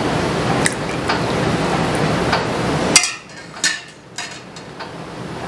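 Apple cider poured from a ladle into a ceramic mug, a steady splashing trickle. About three seconds in, the metal ladle strikes the stainless steel bowl with a sharp ringing clink, and a couple of lighter clinks follow.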